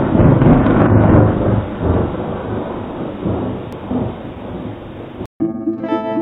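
Thunder rumbling, heaviest in the first two seconds, cut off suddenly near the end. Plucked-string music starts right after.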